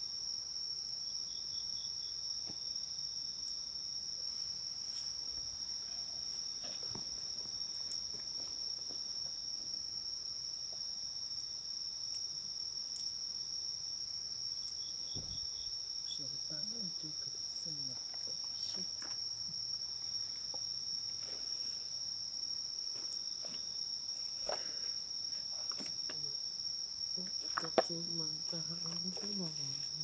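A steady high-pitched drone of night insects, with a second insect giving a short trill twice. Under it a wood campfire crackles with scattered small pops, and one sharp pop comes near the end.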